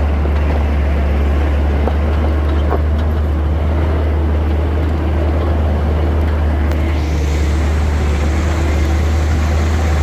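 Vehicle driving along a rough, stony mountain track, heard from inside the cab: a steady low engine drone with rumble from the rough road.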